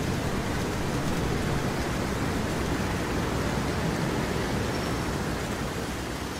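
Steady rushing noise, even across high and low pitches with no tones or distinct hits, starting to fade out near the end.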